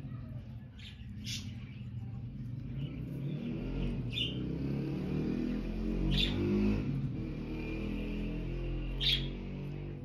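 Indian ringneck parakeets giving a few brief, high chirps, about five in all, the loudest near the end, over a steady low background rumble.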